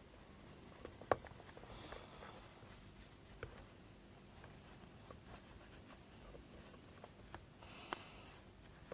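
Plastic air filter cover of a Shindaiwa T270 trimmer being worked loose and handled: faint scraping with a few light plastic clicks, the sharpest about a second in and another near the end.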